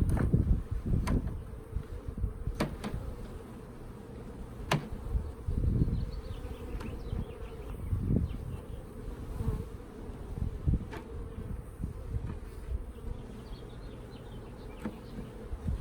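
Honeybees buzzing around an open hive, a steady low hum, with scattered sharp clicks and a few low thumps from handling.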